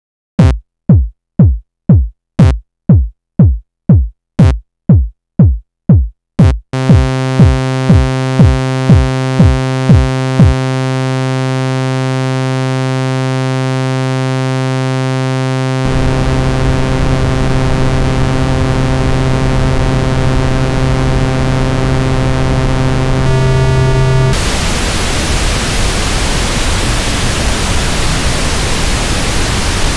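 Korg iMS-20 synthesizer patch being built up step by step. It begins with a run of thumps that drop in pitch, about two a second. A held buzzy tone comes in at about seven seconds, and a hiss of noise joins it midway. Near the end the tone cuts off and leaves a steady rushing noise, the raw sound of a synthesized waterfall.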